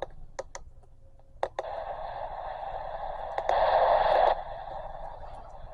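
Radio static from a weather radio receiver: a few sharp clicks in the first second and a half, then a steady hiss that swells louder for about a second midway and drops back.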